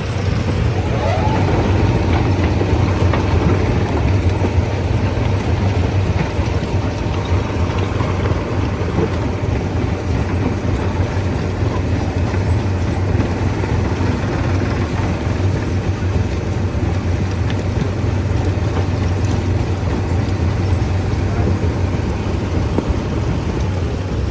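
Heavy stone-crushing machinery running steadily with a deep, continuous drone. A fainter tone rises about a second in and then holds steady.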